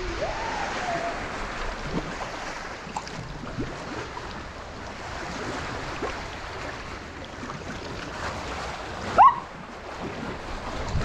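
Seawater sloshing and lapping around a paddled sea kayak, with wind noise on the microphone. About nine seconds in, a short sharp rising squeal is the loudest sound; a fainter rising-then-falling call comes about half a second in.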